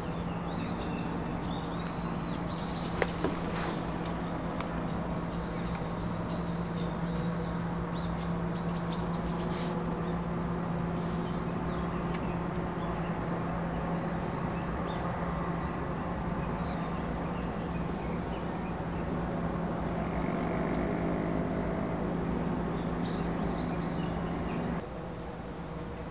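Outdoor ambience of small birds chirping now and then over a steady low mechanical hum, which cuts off suddenly near the end.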